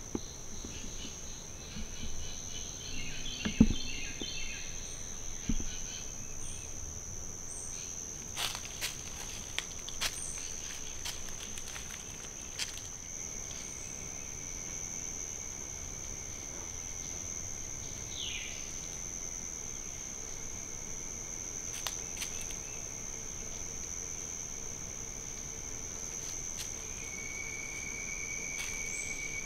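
Steady insect chorus, a continuous high-pitched drone, with a second, lower insect trill joining about two-thirds of the way through. A single sharp thump about three and a half seconds in, and a few faint clicks in the middle.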